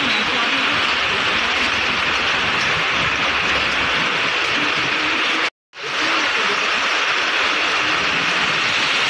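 Heavy monsoon rain pouring onto a street in a steady, loud hiss, with car tyres swishing through the wet road as traffic passes. The sound cuts out completely for a split second a little past halfway, then resumes unchanged.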